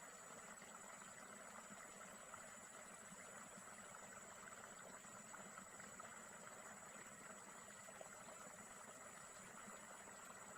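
Near silence: faint, steady outdoor background hiss with a thin, constant high-pitched whine and no distinct events.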